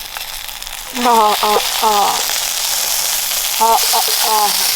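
Sausages sizzling as they fry in a pan, a steady hiss. A high-pitched voice cuts in twice with a few short syllables.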